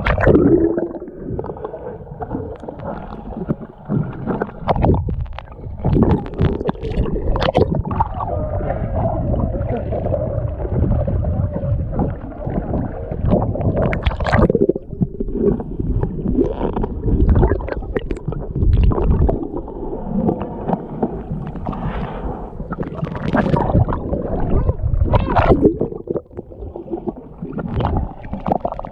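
Muffled water sloshing and gurgling around a camera's waterproof housing as it bobs at the surface and moves underwater, with scattered sharp knocks and splashes.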